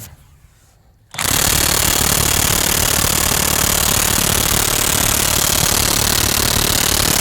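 DeWalt DCF899 cordless brushless impact wrench starting about a second in and hammering continuously on a rusted axle nut through a 30 mm socket. The nut does not break loose.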